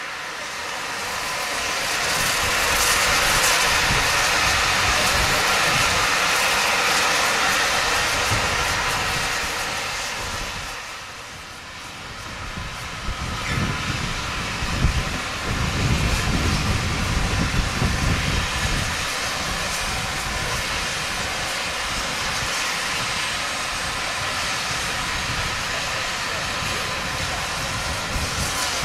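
Steam train: a loud, steady hiss of steam for about the first ten seconds. After a brief lull it gives way to a low rumble with irregular clanks as the train runs on the rails, which then settles to a steady run.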